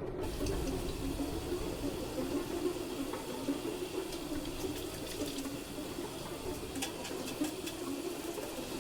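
Running water, a steady rush with a few faint clicks over it.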